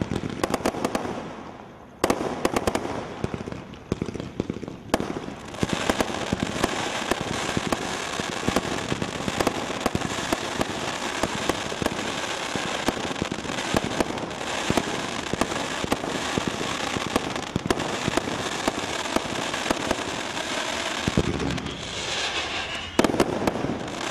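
Sky Thriller (Hercules 2) 107-shot firework cake firing. Sharp shots and bursts in the first few seconds give way to dense, continuous crackling from its crackling stars, and a louder volley of bursts comes near the end.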